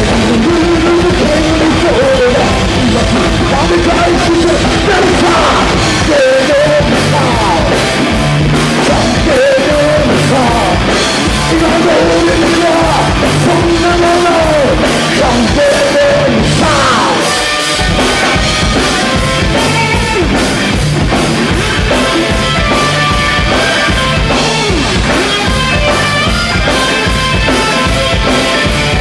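Rock band playing live and loud: distorted guitars, bass and a fast drum kit, with vocals over the top. About two-thirds of the way through the level dips briefly, and the playing then comes back busier.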